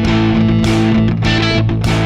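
Rock music with distorted electric guitar and bass over a steady beat.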